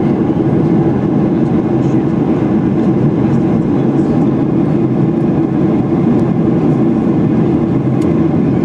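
Steady, loud cabin noise of a Ryanair Boeing 737-800 in flight: the jet engines and airflow over the fuselage, heard from a window seat as an even, unbroken low rumble.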